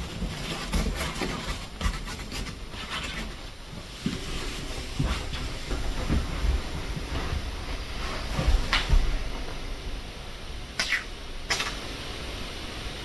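Paper towels rustling and crinkling as they are stuffed around a door hinge, with light handling knocks. Near the end come two short hissing spurts of silicone lubricant sprayed through the can's straw onto the hinge.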